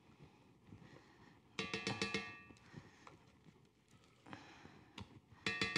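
A glass mixing bowl rings twice as a spatula knocks against it while batter is scraped out: one clear ring about a second and a half in and another near the end, each fading over about a second. Between the rings, faint scraping and small clicks.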